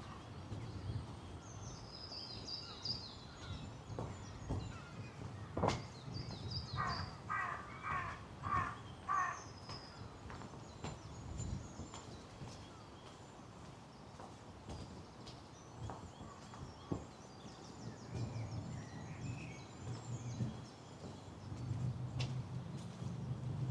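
A crow caws about five times in quick succession, a third of the way in. Small songbirds twitter high and thin around it, with a few light taps.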